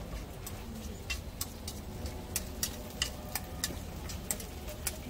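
A metal takoyaki pick clicking and scraping against a cast-iron takoyaki pan as the balls are turned in their cups. The clicks are irregular, a few a second, over a low steady rumble.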